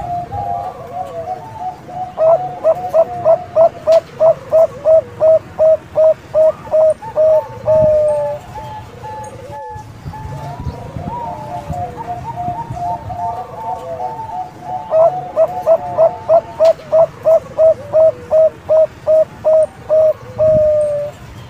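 Zebra dove (Bangkok perkutut) singing: two long runs of quick, evenly spaced staccato coos, each run ending in a longer drawn-out note, with softer cooing in between.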